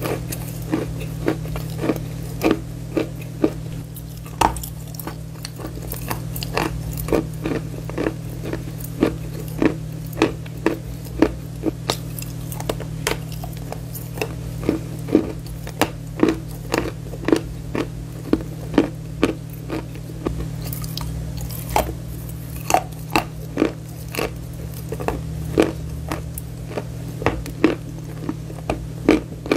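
Close-miked crunching as someone bites and chews dry bar chalk: crisp, regular crunches about two a second over a steady low hum.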